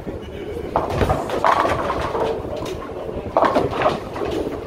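Bowling balls rolling down wooden lanes and striking pins, with clattering pin crashes about a second in and again about three and a half seconds in, over the steady din of the alley.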